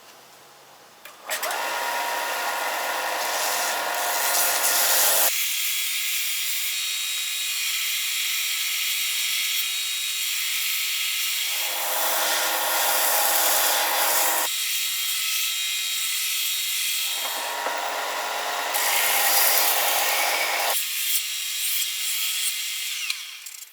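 Belt sander running with pallet wood boards pressed against the belt, flattening a bow in them. It starts about a second in, its tone shifts abruptly several times, and it stops just before the end.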